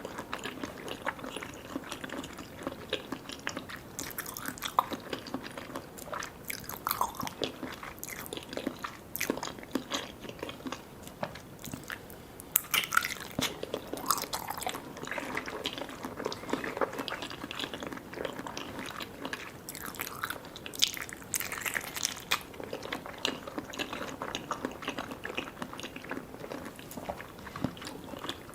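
Close-miked eating of soft, sticky desserts: chewing and biting with wet, sticky mouth sounds and many small clicks, busier around the middle and again about two-thirds through.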